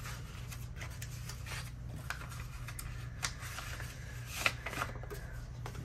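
Paper rustling and scraping as printed card sheets are slid back into a kraft paper envelope: a run of small, irregular rustles over a steady low hum.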